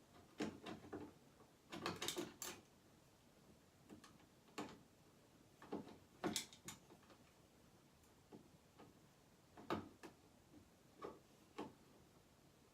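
Faint, irregular small clicks and knocks, in short clusters every second or two, of screws being turned into a light switch's plastic cover plate with a knife used as a screwdriver.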